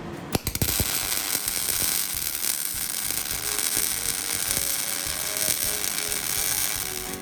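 A power tool working steel: a few sharp clicks as it starts, then a steady, rasping, high hiss.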